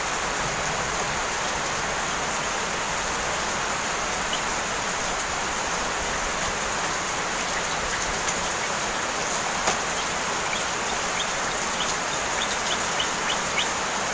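Heavy rain falling steadily, an even hiss with no let-up, with a few faint ticks in the last few seconds.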